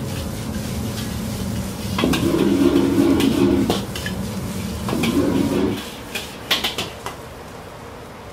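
Metal ladle scraping and clanging against a steel wok as fried rice is stir-fried and tossed, over the low roar of a gas wok burner that surges twice. The roar drops away after about six seconds, leaving a few sharp ladle taps on the wok and a steady hiss.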